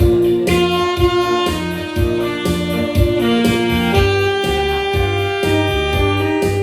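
Saxophone playing a melody of held notes over a backing track with bass and a steady drum beat of about two beats a second.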